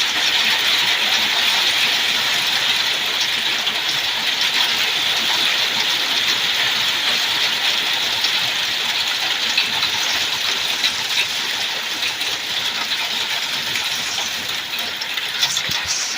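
Pea-sized hail coming down hard: a dense, steady hiss of hailstones hitting, fading a little near the end.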